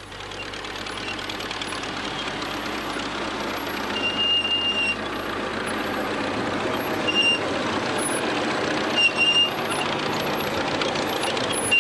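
An old tractor's engine running steadily as it pulls a cart loaded with a hut of corn, growing louder over the first few seconds. Short high-pitched squeaks come through now and then.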